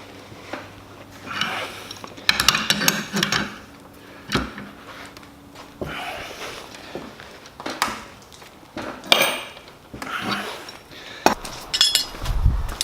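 Irregular clinks and clanks of steel tools and bar stock being handled and set down, with short metallic rings between quieter moments.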